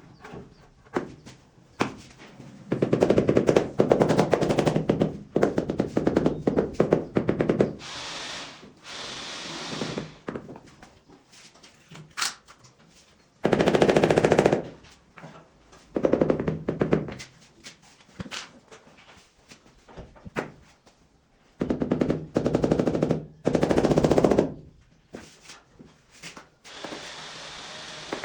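A handheld power tool rattling rapidly in several bursts of one to four seconds each, the longest early on and two more near the middle and toward the end, with quieter hissing between them.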